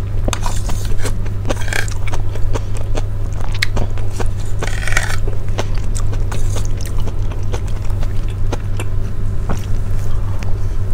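Close-miked chewing and mouth sounds of someone eating soft rice porridge, with small clicks of a fork against a plate and a short scrape about five seconds in, over a steady low hum.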